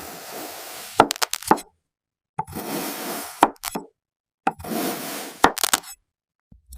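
A blade slicing through packed sand three times. Each cut is a grainy, hissing scrape of about a second that ends in a few sharp clicks, with short silent gaps between cuts.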